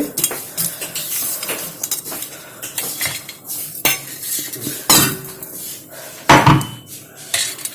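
Kitchen dishes and utensils clinking and knocking irregularly, with louder knocks about four, five and six and a half seconds in.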